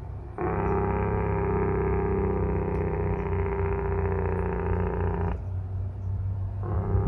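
Loaded diesel semi-truck running downhill on its engine brake: a steady, pitched bark that cuts in about half a second in. It drops out for about a second after five seconds, leaving the lower engine rumble, then cuts back in.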